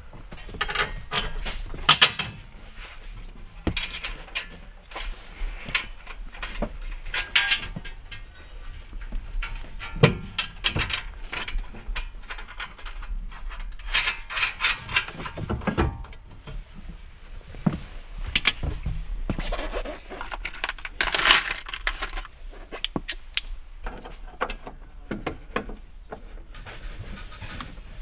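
Irregular clinking, rattling and knocking of metal hardware and hand tools as installers fit the rear partition and seat area of a patrol car, with the sharpest knocks about 2, 10 and 21 seconds in.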